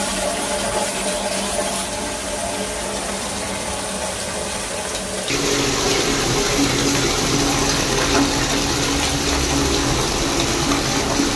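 Tap water pouring steadily into a plastic bucket as it fills. About five seconds in, the sound changes abruptly and becomes a little louder and fuller.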